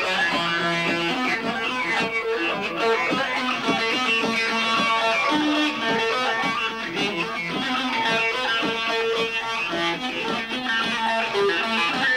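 Music led by a plucked string instrument playing a quick run of short notes.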